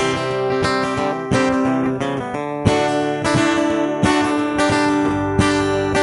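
Background music: acoustic guitar playing the intro of a country song.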